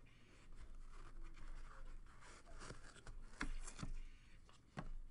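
Trading-card box and packaging being handled and opened: a scratchy rustle of cardboard and wrapper, with several sharp clicks or taps in the second half.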